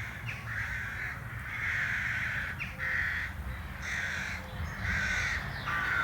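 A bird calling repeatedly with harsh caws, about six calls roughly a second apart.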